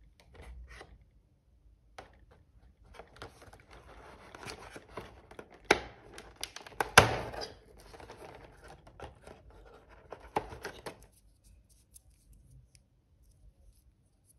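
Cardboard door of a Lindt chocolate advent calendar being pried and torn open, with papery rustling and clicks and two sharp tears about six and seven seconds in, as the small foil-wrapped chocolate is pulled out.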